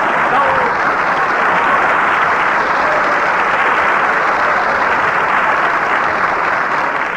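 Studio audience applauding and laughing, a loud steady wash that eases slightly near the end.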